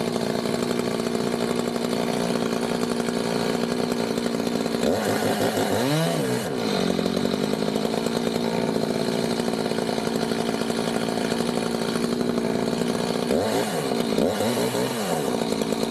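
Chainsaw running steadily at high revs, with its engine speed swinging up and down briefly about six seconds in and twice near the end.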